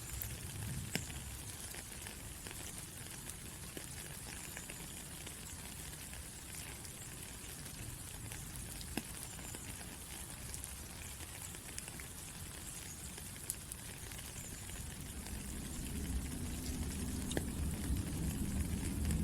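Steady rain falling, with a dense hiss and scattered individual drops ticking on a surface. A low rumble builds over the last few seconds.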